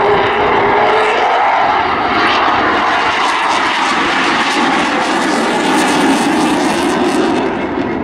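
Typhoon FGR4 jet fighter and Spitfire Mk Vb flying together overhead in formation: a loud, steady drone of jet and piston aero-engines that eases slightly near the end.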